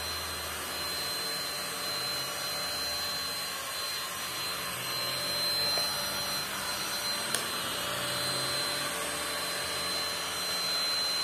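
Perysmith XP6 cordless stick vacuum running steadily, its dust mite brush attachment working over a fabric recliner: an even rush of suction with a thin, steady high motor whine. A single light click about seven seconds in.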